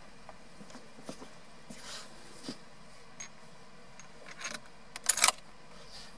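Light handling noises: scattered small clicks and a rustle, then a quick cluster of sharp metallic clinks about five seconds in.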